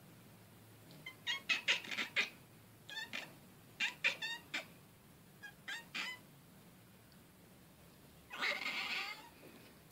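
Tortoiseshell cat at a window chattering: four quick clusters of rapid short chirps, then one longer chirping meow near the end.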